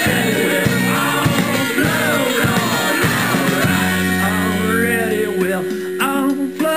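Rock music: a band with drums and a singing voice. About three and a half seconds in, the drum hits stop and a held low note carries on under the voice.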